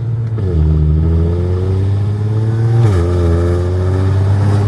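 Audi B8 S4's supercharged 3.0-litre V6, running with test pipes in place of the catalytic converters, accelerating through the gears: the engine note climbs, then drops at upshifts about half a second in and about three seconds in. Heard from inside the car with the windows down.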